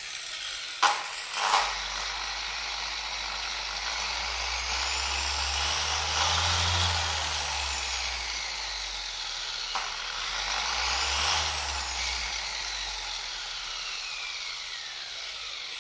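Shinemate EX620 Pro 21mm long-throw dual-action polisher running free in the air, its motor speed rising and falling twice, then winding gradually lower near the end. Two sharp knocks come about a second in.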